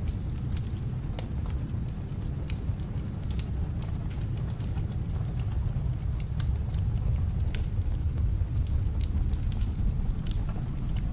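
Fireplace fire crackling with scattered sharp pops over a steady low rumble of blizzard wind.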